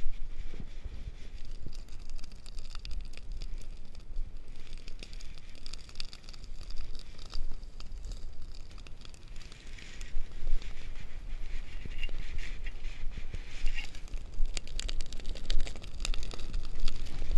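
Dry prairie grass burning close by, with many sharp crackles and pops that grow denser near the end as the flames flare up. Wind rumbles on the microphone throughout.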